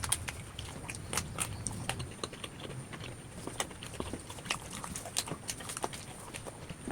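Irregular small wet clicks and smacks, several a second, from eating and handling food close to the microphone.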